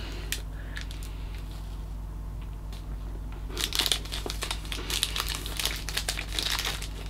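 A plastic chocolate-bar wrapper being crinkled and handled. The crackling starts about halfway through and runs on in a dense, uneven patter.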